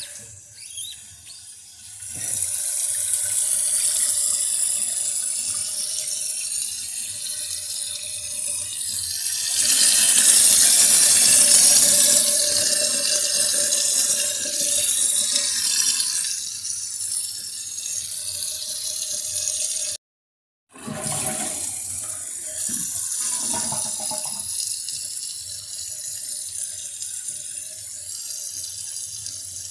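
Toilet tank filling through its inlet (fill) valve: a steady rushing hiss of water with a faint whine in it, swelling louder for several seconds around the middle. It cuts out briefly about two-thirds of the way through, then the filling hiss carries on more quietly.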